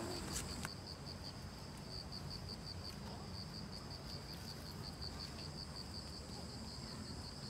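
Insects chirping: a high, even train of pulses about five a second, pausing briefly now and then, over a low steady background rumble.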